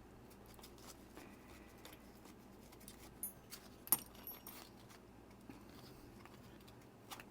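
Faint handling sounds as a nylon watch strap is threaded through a G-Shock's strap adapter: small clicks and light metallic tinks, with one sharper click about four seconds in.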